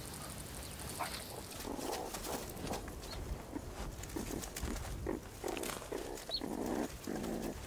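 Meerkat pups digging in a burrow: claws scratching and scraping loose soil, mixed with many short, soft animal vocal sounds that come thicker and louder in the second half.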